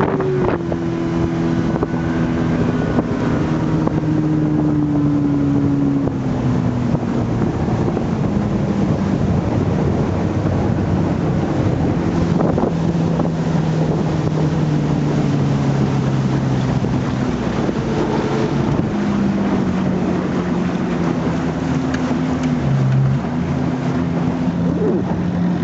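Johnson 115 outboard motor running as the boat cruises, its pitch sagging slowly and then rising again, with wind buffeting the microphone.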